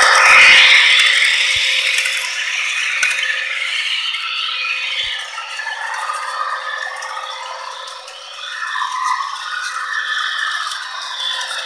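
Model train running on the layout's track: a continuous mechanical rattle of small motor, gears and wheels on the rails. It fades gradually and swells again after about eight seconds.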